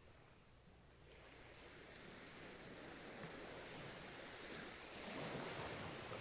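Ocean waves surging and washing ashore. A wave swells up from about a second in and is loudest near the end.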